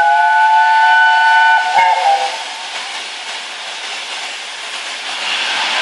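Steam whistle of LNER Peppercorn A1 Pacific No. 60163 Tornado sounding one long chord of several notes, ending about two seconds in. The noise of the approaching locomotive then grows louder near the end.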